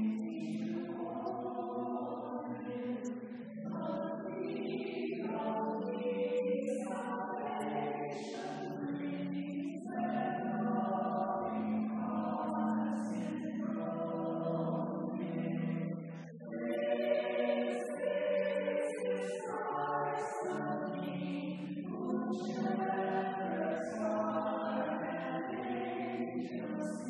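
Voices singing together in church, a choir or congregation singing a hymn in long held phrases, with a brief pause between phrases.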